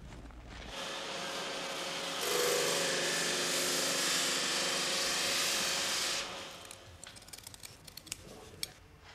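A block of wood pressed against a spinning power sanding disc, giving a loud, steady grinding hiss over the motor's hum for about four seconds before it stops. Near the end come a few small sharp clicks of scissors cutting paper.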